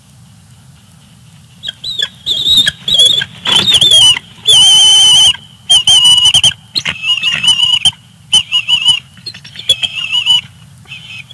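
Bald eagle high-pitched calls, starting about two seconds in and going on as a series of loud chirping runs, with one longer held note midway.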